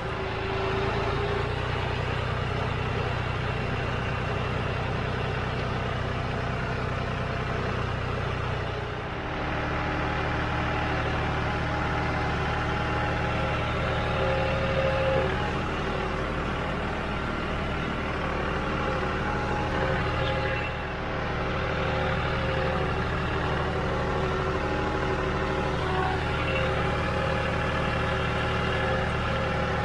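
John Deere 5065 utility tractor's diesel engine running steadily as the tractor drives across a rough field, its note dipping briefly twice.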